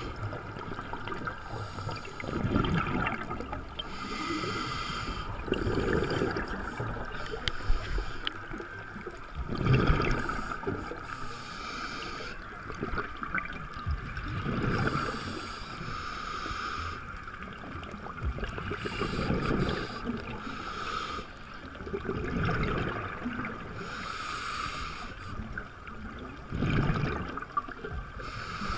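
Scuba diver breathing through a regulator underwater: every four to five seconds a burst of exhaled bubbles, alternating with the hiss of an inhalation drawn through the regulator.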